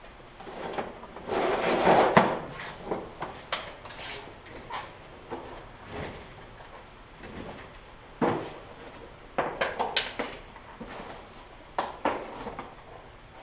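Tools being rummaged for and handled: a drawer or case sliding and scraping about two seconds in, then irregular clatter and sharp metallic clicks as a tap is taken from a tap and die set.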